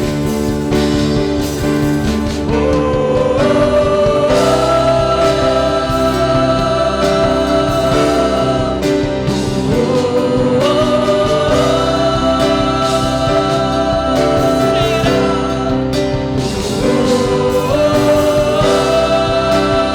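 Live contemporary worship music: a band plays chords and bass under group singing, with the sung melody climbing in phrases that repeat about every seven seconds.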